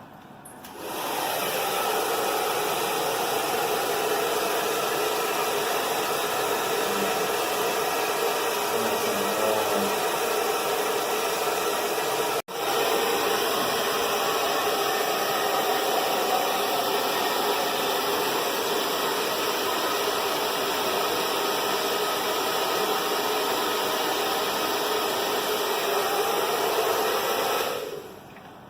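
Hair dryer switched on about a second in and running with a steady rushing noise, cutting out for an instant near the middle, then switched off near the end.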